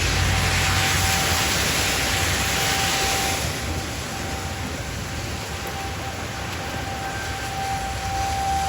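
Outdoor tornado warning siren sounding faintly on one steady tone, swelling toward the end, under a loud hiss that eases off about three and a half seconds in.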